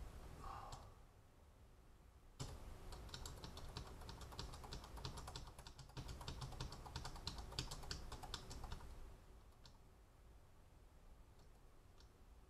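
Faint typing on a computer keyboard. A quick, steady run of key clicks starts about two seconds in and lasts some six seconds, then thins to a few scattered clicks near the end.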